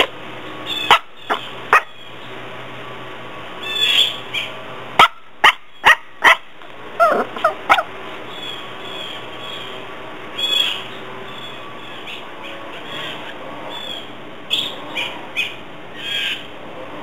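Small puppy yapping in short, high-pitched barks and yips, in bunches: a few near the start, a quick string of sharp barks from about five to eight seconds in, and more near the end.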